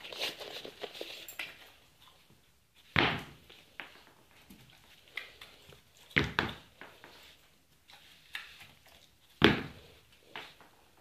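A shoe tapped lightly on a tile floor, giving three sharp knocks about three seconds apart, with fainter knocks and clicks between them. The taps are a mild version of shoe-swatting bugs, played to a shoe-fearful dog as treats are given.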